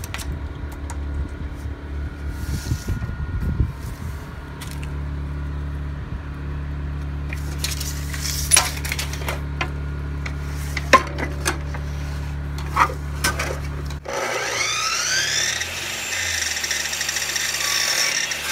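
Sliding miter saw motor starting after several seconds of wood and tape-measure handling knocks over a steady low hum. Its whine rises steeply as the blade spins up, then holds high while it cuts a length of wooden door-stop trim.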